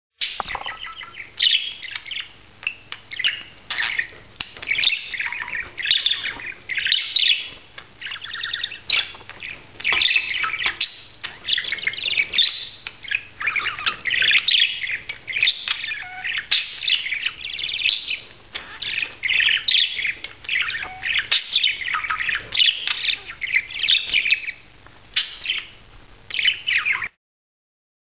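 Budgerigar warbling and chattering in a fast, continuous run of chirps and squeaky notes while mounting and rubbing against a toy in courtship. The sound cuts off abruptly near the end.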